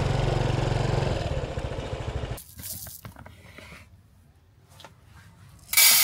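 A small Honda motorcycle's engine running at low speed, stopping abruptly a little over two seconds in. After a quiet stretch with a few faint clicks, tap water rushes loudly into a pot of rice near the end.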